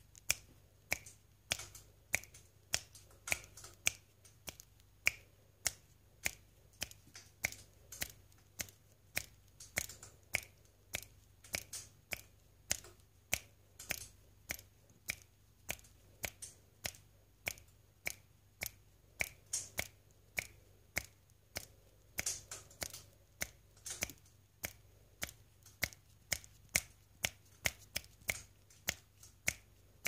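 Crisp finger snapping, repeated steadily at about two snaps a second.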